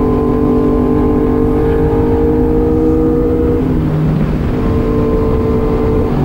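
Motorcycle engine running at steady revs while riding, with heavy wind rumble on the microphone. About midway the engine note drops away for about a second, then comes back at much the same pitch.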